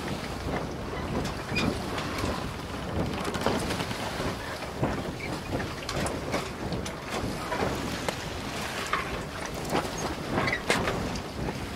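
Tour boat moving along a canal: a steady low rumble and rushing noise, broken by frequent irregular knocks and clatters.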